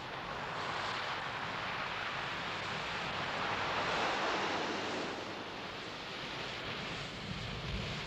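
Sea surf breaking and washing up the beach: a rushing wash of waves that swells to a peak about halfway through and then eases.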